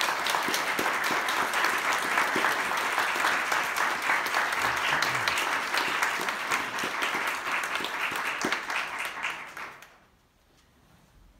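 Audience applauding, a dense patter of many hands clapping that holds steady and then dies away near the end.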